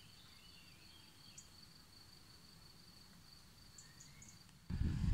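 Quiet countryside ambience: a steady high insect trill with a few faint bird chirps over it. Near the end the sound cuts abruptly to a louder low rumble.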